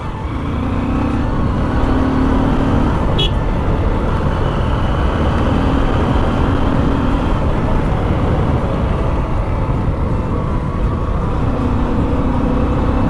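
Honda CB Shine 125's single-cylinder engine running at road speed under heavy wind rush. The engine note comes through in three stretches, and the sound grows louder over the first couple of seconds.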